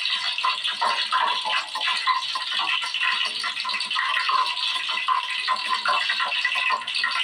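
Hot cooking oil sizzling and crackling steadily, a dense rapid patter of small pops.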